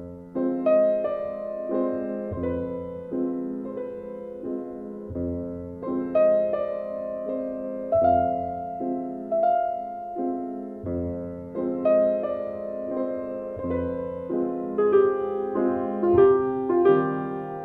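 Slow piano music, notes struck and left to ring, with a low bass note about every three seconds.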